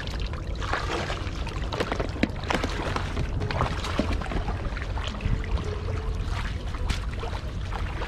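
Water splashing and sloshing in irregular bursts as people wade through shallow lake water, over a steady low rumble.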